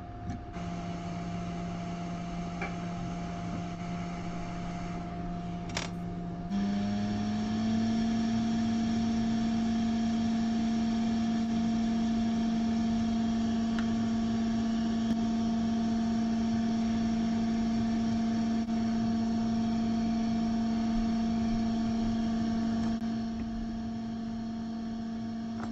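Steady machine hum from a small motor, whirring with a few fixed tones. About six and a half seconds in it steps up in pitch and gets louder. It eases off slightly near the end.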